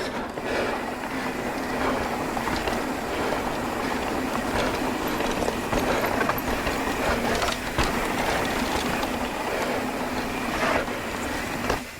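Mountain bike rolling over rough rocky trail: a steady rush of tyre and wind noise with a busy rattle of the chain and frame over the bumps.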